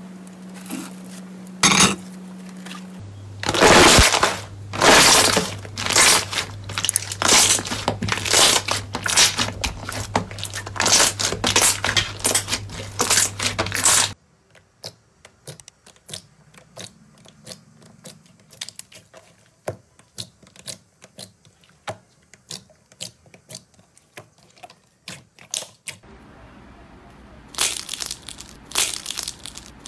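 Green slime being stretched and kneaded by hand, giving dense crackling and popping clicks that are loud through the first half and much softer afterwards. Near the end a squishy filled with white foam slime is squeezed, giving a burst of crinkling.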